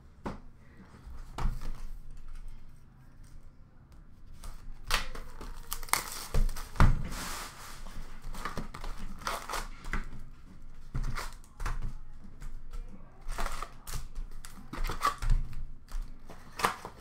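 A new box of Upper Deck Series One hockey cards being opened and unpacked: plastic wrapping crinkling and tearing, with irregular knocks and taps of the cardboard box and packs on the counter, the densest crinkling a few seconds in.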